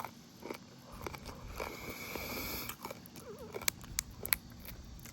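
Close-miked chewing and eating sounds: scattered wet mouth clicks and smacks, with soft rustling in between.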